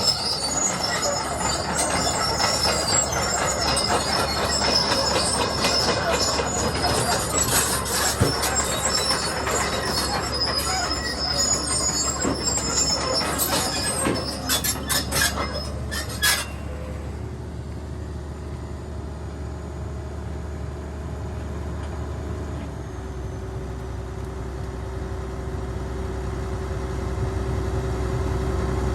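Cat 320D2 excavator's steel tracks clanking and squealing over its running engine, with many sharp metallic clicks and high squeals. About halfway through it cuts off suddenly, leaving a steady engine hum with a held tone.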